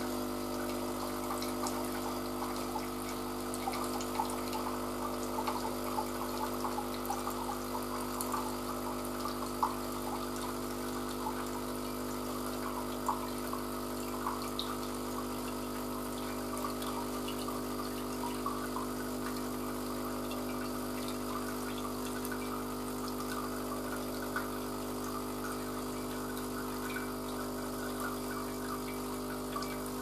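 Philips EP1200 automatic coffee machine running its rinse cycle: the water pump hums steadily while hot water runs from the spout into a glass, with light splashing and dripping.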